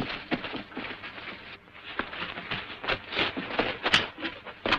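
Irregular scuffling footsteps and knocks as people scramble over a wooden picket fence and hurry away, with a sharper knock about four seconds in.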